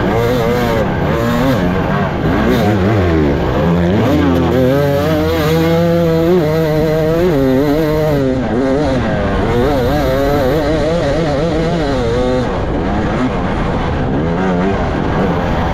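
Off-road dirt bike engine racing, picked up by the bike's on-board camera, with its pitch rising and falling quickly and continually as the throttle is worked.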